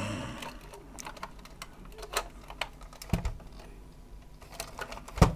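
Hard plastic parts of a toy figure clicking and knocking lightly as it is handled and pulled apart, irregular small clicks with a louder knock near the end.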